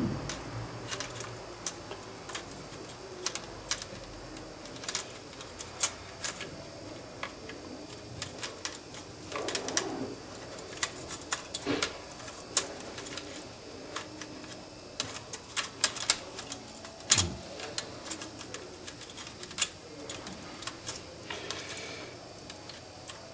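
Plastic enclosure and metal drive cage of a Western Digital My Book World Edition external hard drive being handled and worked apart by hand: scattered sharp clicks and taps, with a couple of short low creaks.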